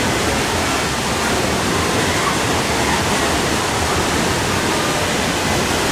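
Steady, loud rushing noise with no clear tones, heaviest and most uneven in the low end.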